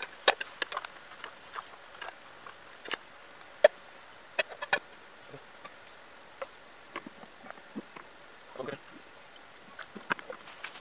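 Scattered sharp clicks and knocks of camp cooking utensils being handled: a metal spoon, cup and pot knocking together. The loudest come a moment in and again just under four seconds in, with a short run of knocks near the end.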